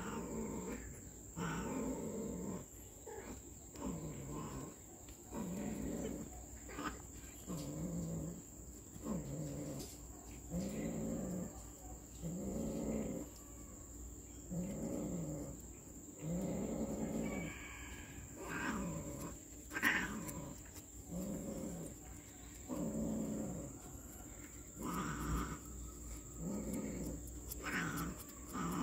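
Cats mating: a long run of low, drawn-out yowls that rise and fall, repeating about once a second. One sharp click comes about two-thirds of the way through.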